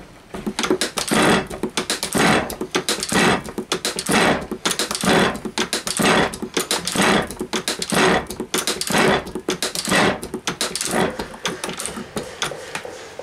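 Metal shaper taking cutting strokes along the rough chain-drilled edge of a metal plate: a harsh scraping burst of cutting with clicks about once a second, in a steady rhythm.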